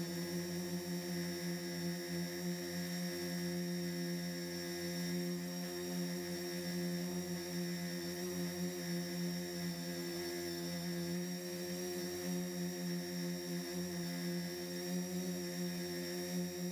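Turnigy SK450 quadcopter's electric motors and propellers running steadily in flight, a continuous pitched hum that wavers slightly in pitch, heard from the camera mounted on the quadcopter.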